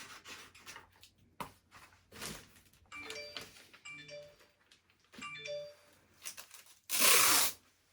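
A short electronic chime sounds three times, about a second apart. Near the end comes a loud, brief rip of sellotape being pulled off the roll.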